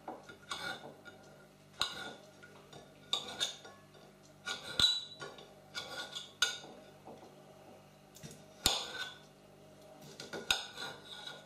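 Kitchen knife cutting plums into small pieces on a ceramic plate, the blade clicking and scraping against the plate in irregular strokes about once a second.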